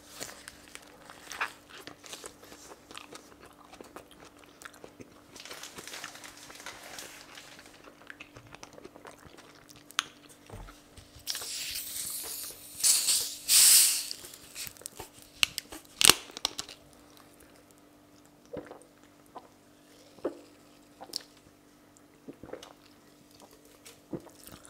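A person biting and chewing a chicken shawarma, with crunching and scattered sharp clicks. A paper wrapper rustles loudly for a few seconds near the middle as the wrapped shawarma is set down.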